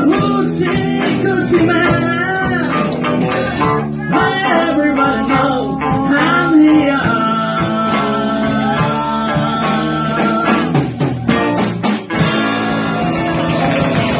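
Live band playing a blues number, with singing and guitar over bass and drums; a long held note in the middle and a brief drop about twelve seconds in before the band plays on.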